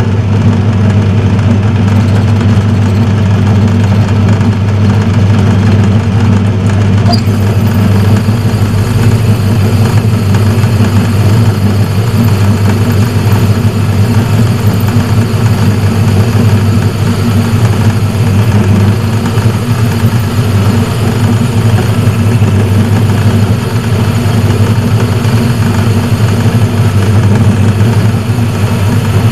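Metalworking lathe running steadily with a loud, even low hum from its electric motor and drive.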